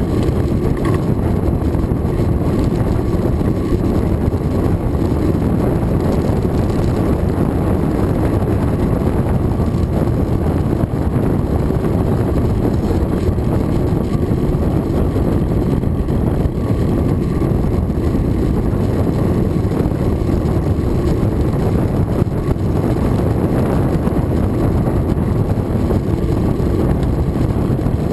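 Wind buffeting the microphone of a camera on a moving road bicycle, heard as a steady, loud, low rumble that never lets up.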